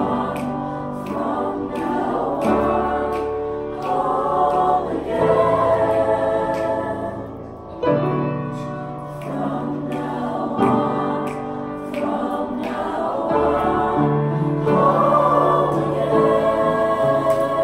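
Mixed-voice school choir singing held chords in several parts, in long phrases with a brief break about eight seconds in.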